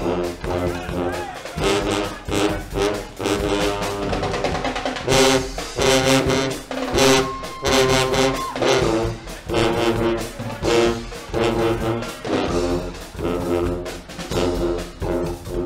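Guggenmusik band playing: loud brass in short, rhythmic chords, in the band's march-out.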